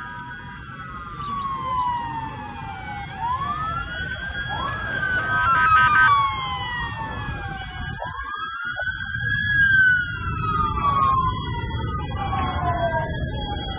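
Several emergency-vehicle sirens wailing at once and overlapping. Each one rises quickly, then falls slowly over a few seconds, over a low steady rumble.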